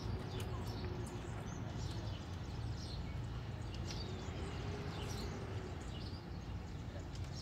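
Birds calling outdoors: many short, high chirps scattered through, with one longer sliding call about four seconds in, over a steady low rumble.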